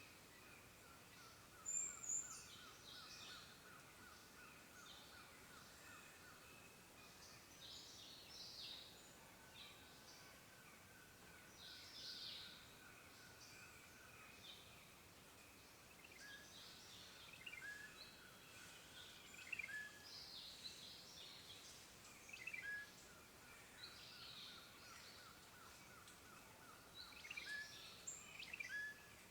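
Faint forest birdsong: scattered short chirps and calls from several birds, over a low pulsing trill that comes and goes.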